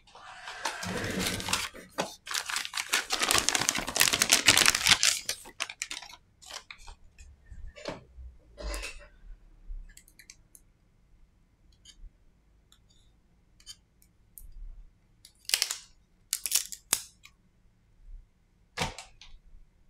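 Loud rustling and crackling for the first few seconds, then scattered light clicks and taps as tweezers and the Samsung Galaxy M20's replacement display assembly are handled on a silicone repair mat.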